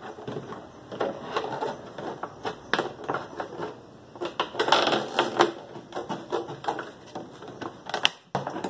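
Thin PET plastic jug crackling and clicking as a small blade cuts a circular hole through its side, in irregular sharp crinkles and snaps.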